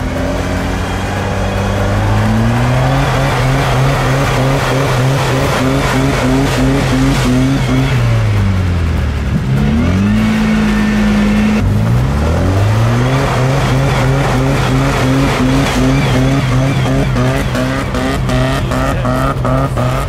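Off-road vehicle's engine revved hard and held at high revs, falling away steeply around the middle and then revving up again and holding high.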